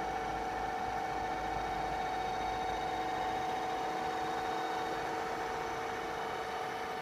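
Soraluce TR 2-2000 radial drill running steadily, its spindle motor and head gearbox giving an even hum with a few constant pitched tones over it.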